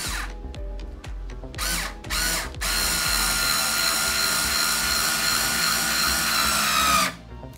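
Black+Decker 4V MAX cordless screwdriver (BDCS50C) driving a screw into wood. It gives a couple of short bursts, then runs steadily for about four and a half seconds, its whine dropping slightly in pitch just before it stops as the screw seats.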